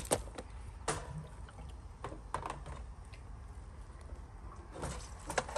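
Plastic Seaflo jerry can and its spout clicking and knocking against a kerosene heater's fuel filler as it is tipped to pour, with a little liquid trickling as fuel starts to go in. The clicks are scattered, a few at a time.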